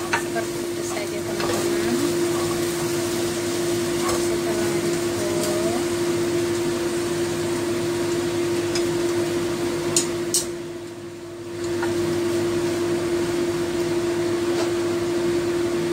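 Meat pieces frying in a wok with a steady sizzle, a wooden spatula stirring and now and then clicking against the pan. The sizzle dips briefly a little past the middle, and a steady hum runs underneath.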